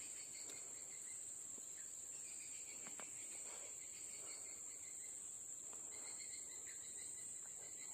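Insects chirring steadily: a continuous high-pitched drone, with a fainter pulsing chirp lower down.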